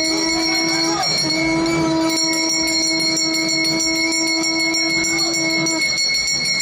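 Conch shell (shankha) blown twice during the lighting of a ceremonial lamp: a short blast of about a second, then a long steady note held for about four and a half seconds, over crowd noise.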